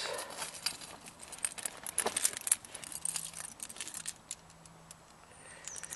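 A bunch of keys on a keyring, with its attached bits, jangling and clinking as it is handled. The clinks are busiest in the first half and thin out toward the end.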